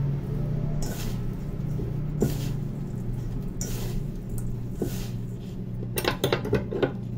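Hands kneading a crumbly breadcrumb, Brazil nut, herb and butter mixture in a stainless steel bowl: soft crumbling and rubbing with scattered taps and scrapes against the metal, several in quick succession near the end. A steady low hum runs underneath.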